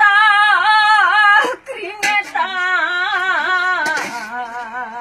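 An elderly woman singing in a high, wavering voice: two long held phrases with a short break about a second and a half in, then softer after about four seconds.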